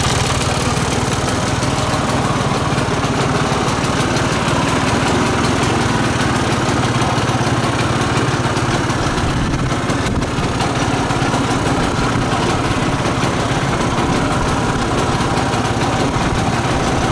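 Piaggio Ape 50 three-wheeler's small single-cylinder two-stroke engine running steadily at idle.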